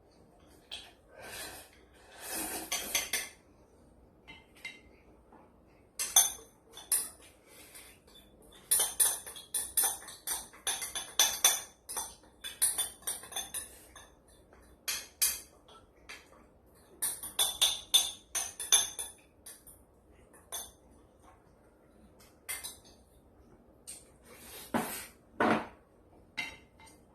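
Eating utensils clicking and clinking against dishes during a meal, in irregular clusters of short sharp clicks that are busiest in the middle of the stretch, with a duller knock near the end.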